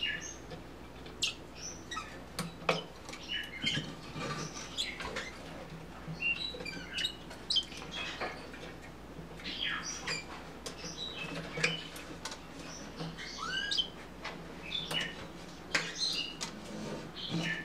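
Bourke's parakeets chirping and twittering in many short calls, some rising, with scattered sharp clicks throughout.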